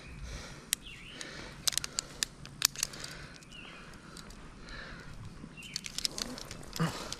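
A bird calling repeatedly with short chirps every couple of seconds, over sharp clicks and knocks in small clusters, the loudest near the end; the saw is not running.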